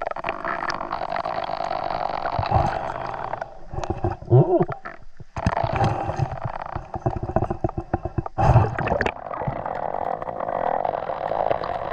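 Muffled underwater rush of river water, heard through a GoPro's sealed dive case as a snorkeler swims, with gurgling and knocks that peak about four and a half and eight and a half seconds in.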